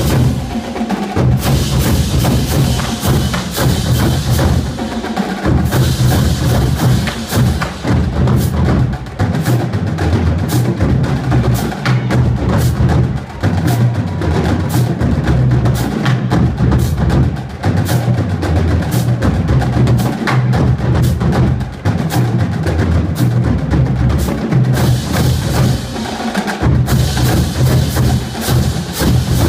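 Marching drumline playing a fast, dense percussion piece: rapid stick strokes over low bass drum notes, the bass drums dropping out briefly a few times.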